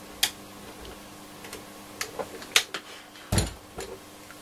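Handling clicks and knocks from a Roberts R727 transistor radio being turned on the bench and its top push-buttons worked: about half a dozen sharp clicks, with one heavier knock about three seconds in.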